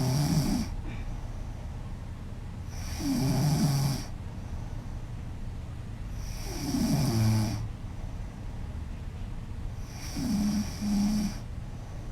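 A sleeping woman snoring loudly and rhythmically, one snore about every three and a half seconds, the last one broken in two.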